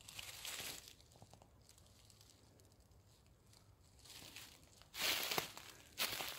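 Footsteps in dry fallen leaves: a rustling crunch near the start, a quiet stretch, then two louder crunching steps about five and six seconds in.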